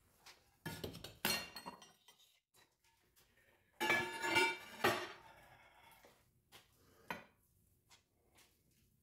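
Fired ceramic ware clattering and clinking inside an electric kiln as a kiln shelf is lifted out with a kiln post stuck to it, knocking into the glazed pieces and breaking a heart-shaped bowl. There is a short burst of clatter about a second in, a longer, louder ringing clatter around four seconds in, then a few light knocks.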